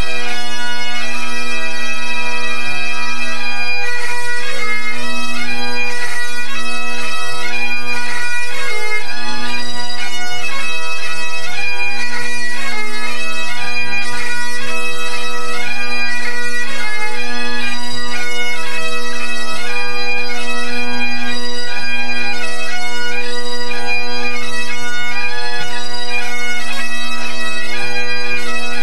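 A pipe band's Great Highland bagpipes playing a tune together during the pre-competition tune-up: the drones hold one steady note under the chanter melody. Loud and close.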